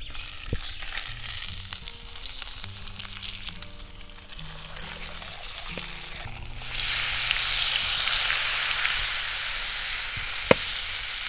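Flour-breaded crucian carp frying in hot oil in a pan, with a steady sizzle that gets louder about six and a half seconds in. A single sharp click comes near the end.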